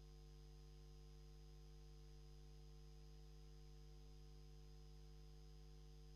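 Near silence with a faint, steady low hum.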